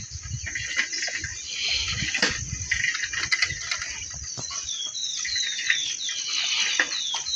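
Steady outdoor chorus of crickets or other insects. A bird joins in the second half, repeating a short falling chirp about three times a second. Low knocks and rumble come from the camera being jostled as it moves.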